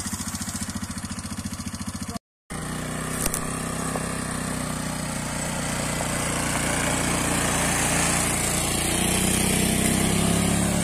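Quad bike (ATV) engine idling with a fast, even pulse. After a brief cut it runs as the bike pulls a loaded trailer and drives past, growing a little louder near the end.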